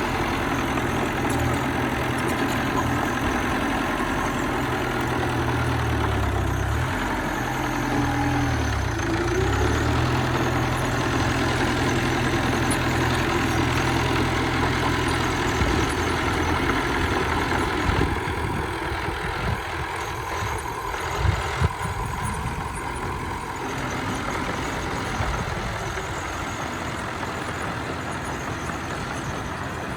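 Bulldozer's diesel engine working, its pitch shifting up and down under changing load, then easing to a quieter run a little past halfway. Two short knocks come about two-thirds of the way through.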